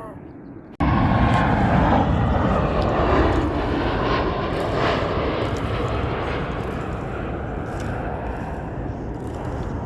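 Jet airliner's engines passing close by: a loud, steady noise that cuts in suddenly about a second in and slowly fades as the plane moves away.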